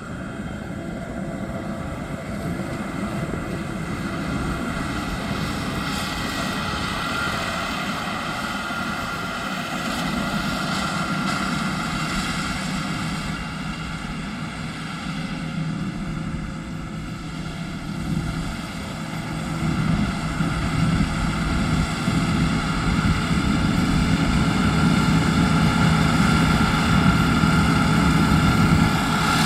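Yanmar YH6115 six-row combine harvester running steadily in a rice field, with a continuous engine hum and whine; it grows louder about two-thirds of the way through.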